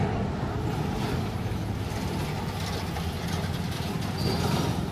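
Heavy diesel vehicles pulling around a hairpin bend: a bus's engine makes a steady low rumble, and a loaded lorry comes up behind it.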